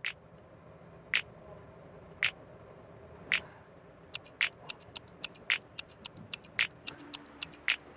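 Clock ticking, a sharp tick about once a second, then from about four seconds in joined by faster, uneven ticks layered over it.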